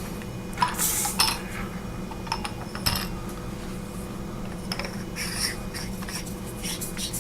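Three 18650 lithium-ion cells being put back into a flashlight body and the light reassembled: scattered small clicks and metallic clinks of handling, in clusters about a second in, near three seconds, around five seconds and near the end.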